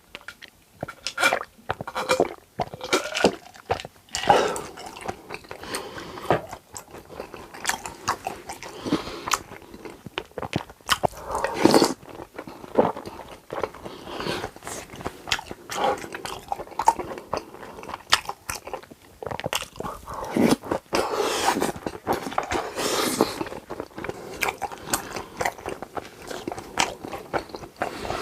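Close-miked eating: repeated crunchy bites and chewing of food, with many irregular sharp crackles.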